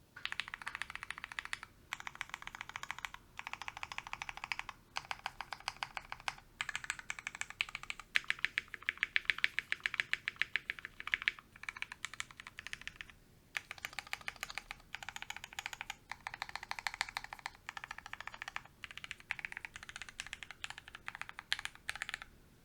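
Fast typing on a mechanical keyboard with lubed, filmed Kinetic Labs Gateron Hippo switches, brass plate and case foam: a dense run of keystrokes with a thocky, consistent sound, broken into bursts by short pauses.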